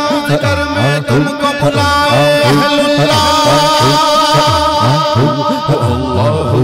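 Male voice singing a hamd through a microphone, holding a long wavering note from about three seconds in. Beneath it a low, rhythmic background chant of "Allah" repeats steadily.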